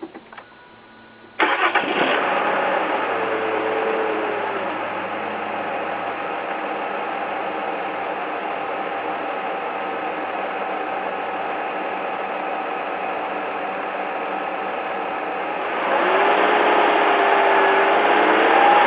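Mazda6 s 3.0-litre Ford Duratec V6, heard close to its stock air box, starting warm about a second and a half in and settling to a steady idle. Near the end the engine speed rises a little and holds.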